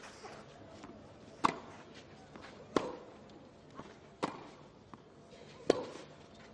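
Tennis rally: a tennis ball struck back and forth with racquets, four sharp hits about a second and a half apart, with fainter knocks between them.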